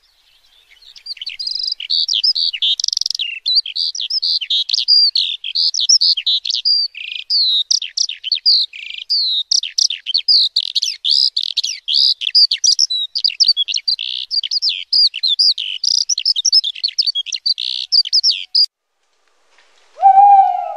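A songbird singing a long, fast, varied song of high chirps, whistles and trills that stops about two seconds before the end. Near the end a loud, steady mid-pitched tone begins.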